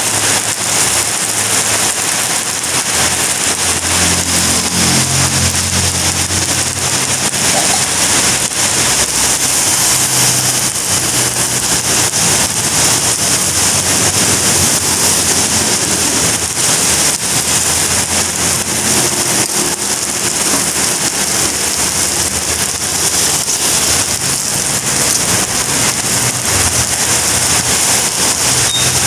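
Steady hiss of heavy rain pouring down, mixed with fried rice sizzling in a wok and a metal spatula scraping and clacking against the pan as the rice is stirred.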